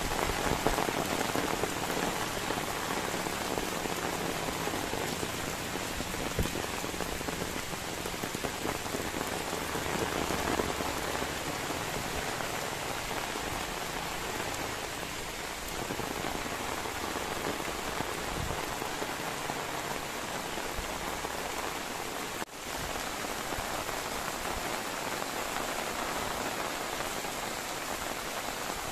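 Steady rain falling, an even hiss of drops that cuts out for an instant about three-quarters of the way through.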